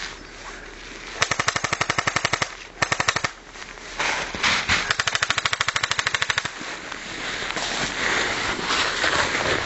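Airsoft guns firing full-auto, about 16 shots a second, in three bursts: a second-long burst, a short one, then a burst of over two seconds.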